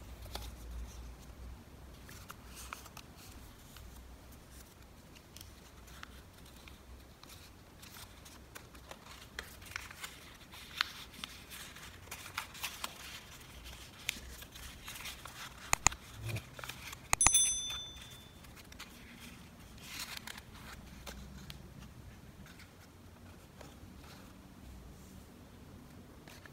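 Origami paper rustling and crinkling as it is folded and opened out into a boat, with scattered soft clicks and taps from fingers on paper and table. Busiest in the middle, with a brief high ringing tone about two-thirds of the way through.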